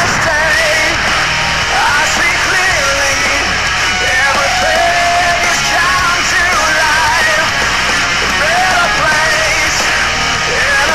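Loud rock music with shouted, yelled vocals over a full band.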